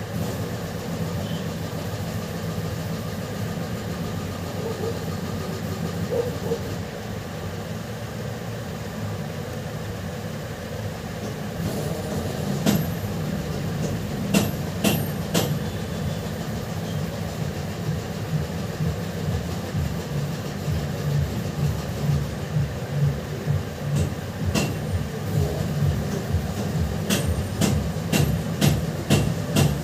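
Steady whirring hum of a hot-air blower used to heat and solder a phone's display connector back onto the board. About twelve seconds in, sharp clicks and taps begin, growing frequent towards the end.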